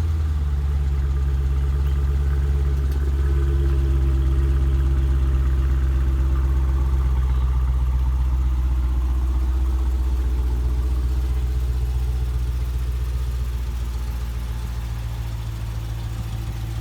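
Dodge Challenger Scat Pack's 392 (6.4-litre) HEMI V8 idling just after start-up, a steady deep run that eases slightly quieter over the second half.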